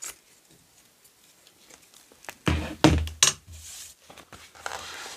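Handling noise on a tabletop: a quick cluster of clicks and knocks with a dull thud about two and a half seconds in, then faint rustling as craft materials are moved about.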